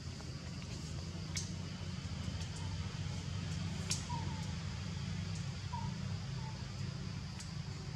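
Outdoor background: a steady low rumble and a faint steady high hum, with a few short faint chirps about four, six and six and a half seconds in, and two sharp clicks about a second and a half and four seconds in.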